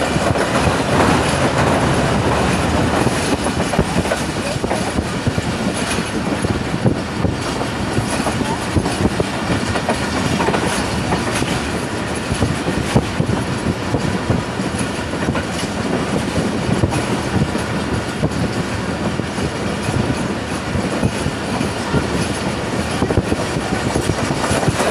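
Passenger train in motion, heard from on board: a steady rumble and rattle of the coach's wheels running on the track, with a few sharper clacks.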